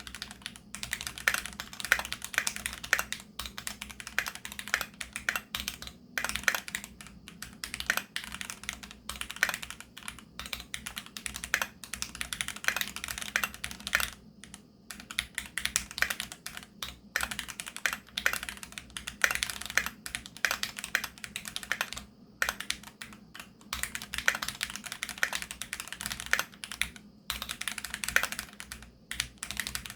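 Typing on a Keychron Q2 aluminium-bodied mechanical keyboard with Gateron G Pro Brown tactile switches. A quick, uneven run of keystrokes, broken by a few short pauses.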